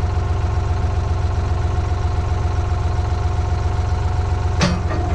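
A 1997 skid steer's engine idling steadily with a low, even rumble. A brief burst of hissing noise cuts in near the end.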